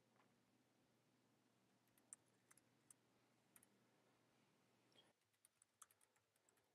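Very faint computer keyboard typing: scattered key clicks, coming quicker in the last couple of seconds, over a faint low hum that drops away about five seconds in.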